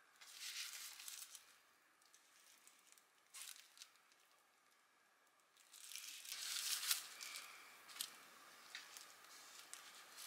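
Plastic cling wrap around a sandwich crinkling as the wrapped halves are handled and pulled apart, in three soft bouts: one at the start, a short one a few seconds in, and the longest about six seconds in.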